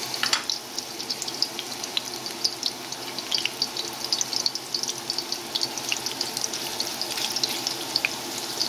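Sliced ginger sizzling in hot oil in a metal pot, a steady frying hiss with dense crackling pops.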